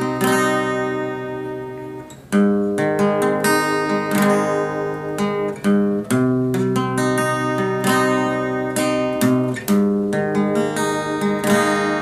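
Background music: acoustic guitar strumming chords, with a brief dip about two seconds in before the chords resume.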